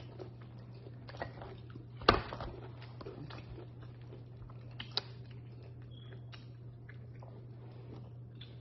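Close-up eating sounds of a boiled lobster: shell and meat picked apart by hand, with chewing, small wet clicks and one sharp crack about two seconds in. A steady low hum runs underneath.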